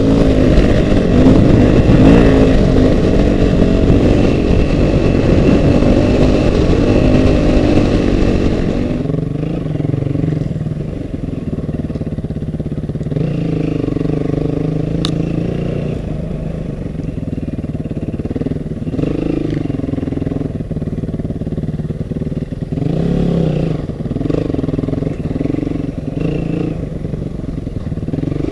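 Off-road motorcycle engine running and revving, its pitch repeatedly rising and falling. It is loudest for the first nine seconds, then quieter. A single sharp click comes about fifteen seconds in.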